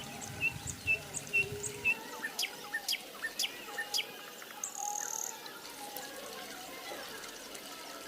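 Small birds chirping: a run of short high chirps about twice a second, then quick downward-sweeping calls, and one longer high whistle near the middle. A low rumble stops about two seconds in.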